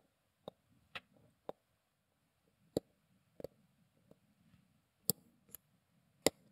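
Light, sharp clicks of steel tweezers touching a watch movement's main plate and jewel setting while a jewel is set back in place: about nine separate clicks at uneven spacing, two of them louder in the second half.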